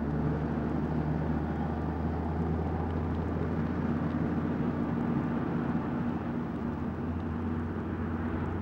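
Steady low engine drone with a deep, even hum, as of motor vehicles running; a higher tone rises out of the drone for a few seconds in the middle.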